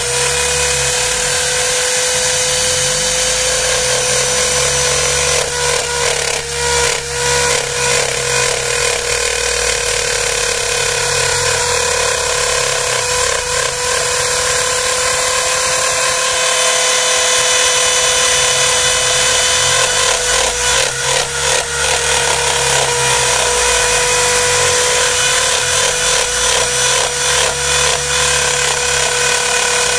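DIY CNC router cutting plywood: the wood router's motor runs with a steady high whine while its bit chews through the wood with rough chatter, heaviest in two stretches about six and twenty seconds in. Underneath, low hums shift in pitch as the machine's stepper-driven axes change speed. The cut shudders a fair amount, which the builder puts down to the weak mount holding the router.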